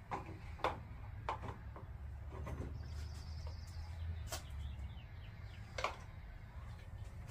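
Scattered knocks and clicks of plastic toy parts being handled and fitted together during assembly. A low rumble runs through the middle.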